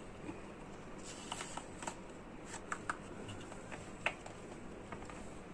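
A silicone chocolate-bar mould being flexed and peeled off a set bar of white chocolate by hand: faint rustling and scattered small clicks, the sharpest about four seconds in.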